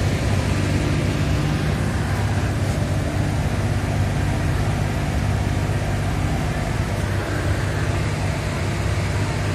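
Steady running noise inside a train's driving cab as it moves slowly along the line: a low, even hum with a faint higher tone that comes and goes.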